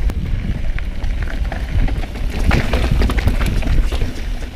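Mountain bike rolling down a rough dirt trail, heard from a helmet-mounted GoPro: heavy rumble of tyres and wind on the microphone, with scattered clicks and knocks from the bike rattling over the ground.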